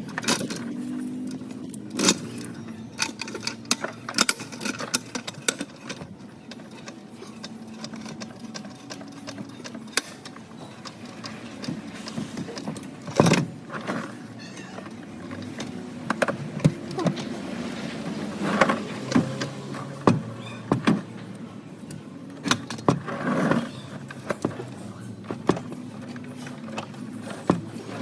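Metal hand tools and parts clinking and knocking in irregular, sharp strikes during clutch work, over a low steady hum.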